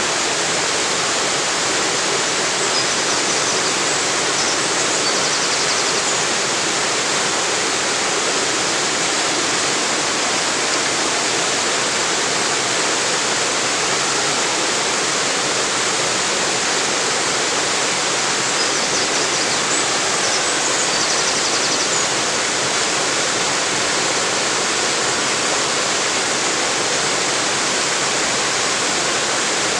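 Small river waterfall: water pouring and splashing in a steady, unchanging rush.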